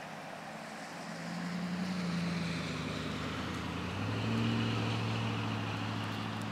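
An engine running steadily, growing louder about a second in and settling into a stronger, steady hum about four seconds in.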